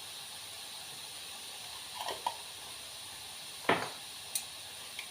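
Kitchen handling sounds while seasoning: a couple of light knocks about two seconds in and a short sharper knock near four seconds in, over a steady faint hiss.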